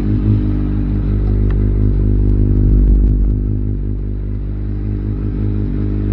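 Kawasaki Versys 1000's inline-four engine idling steadily, swelling a little about three seconds in.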